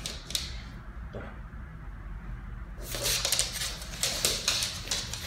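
Siberian husky's claws clicking and scrabbling on a laminate floor as the dog moves about quickly, a dense run of clicks from about three seconds in lasting roughly two seconds, with a few single clicks near the start.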